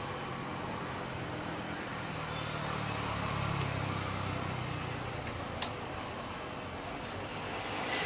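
Jet airliner engines heard from a distance as the plane lands: a steady rumble and hiss that swells about three seconds in, with one sharp click just after halfway.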